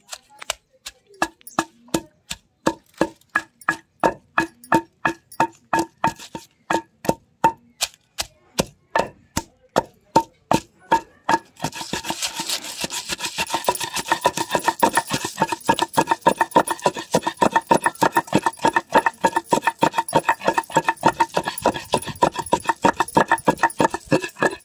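Wooden pestle pounding green chillies, garlic, cumin and salt into a paste in a stone mortar: steady knocks about two to three a second, turning faster and denser about halfway, with a steady hiss behind them from then on.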